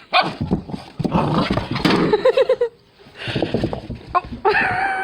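A person's breathless, wheezing laughter, with a quick run of short laughs near the middle, mixed with a puppy's barks; a high, downward-bending cry comes near the end.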